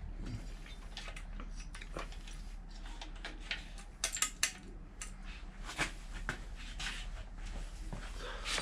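Small metallic clicks and ticks of hands fitting a thin cable at the carburetor of an 80cc bicycle engine kit, with a cluster of sharper clicks about halfway through.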